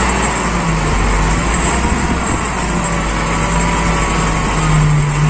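Heavy diesel dump truck's engine running steadily while its hydraulic hoist tips up the sand-laden bed to dump the load.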